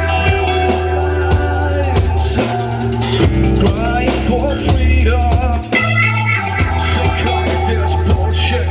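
Live rock band playing with drum kit, guitar and deep sustained bass notes that change about once a second.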